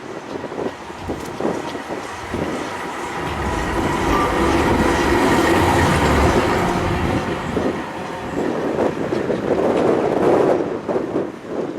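A tram running past on its rails. It grows louder to a peak about halfway through and then fades, with a steady whine over a low rumble.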